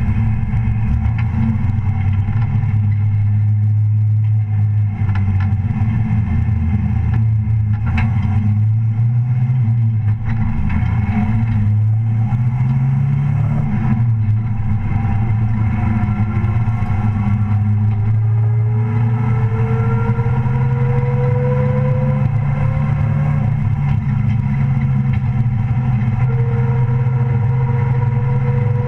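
Engine of a Mighty Truck class race truck running under way, picked up close from a hood-mounted camera. It holds a steady low note, then climbs gradually in pitch in the second half as the truck gathers speed.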